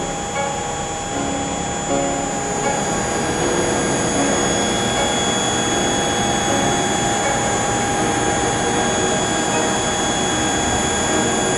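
ACER VMC-1824 vertical machining center running: a steady high whine with several fixed tones over a loud, even hiss of machining noise.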